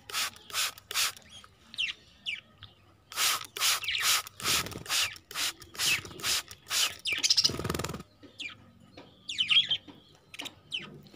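A cage of young budgerigars chirping and chattering, with runs of short, harsh calls about three a second broken by quieter gaps and thinner chirps that sweep in pitch.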